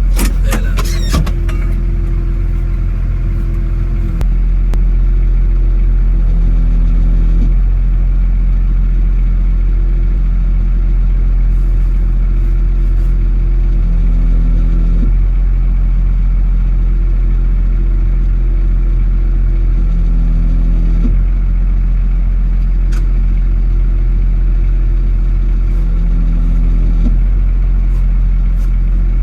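Tractor engine running steadily under load, a constant low hum with tones above it that step in and out every few seconds.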